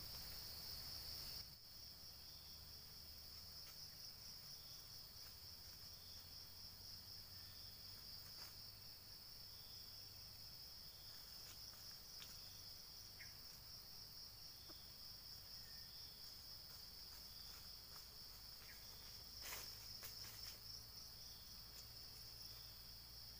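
Faint, steady high-pitched drone of insects, with short faint chirps repeating about once a second and a few soft clicks, the loudest about three-quarters of the way through.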